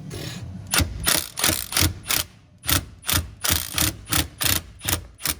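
A socket ratchet being swung back and forth to loosen a bolt under the car, giving a quick burst of clicking on each stroke. There are about a dozen strokes, roughly three a second, with a short pause partway through.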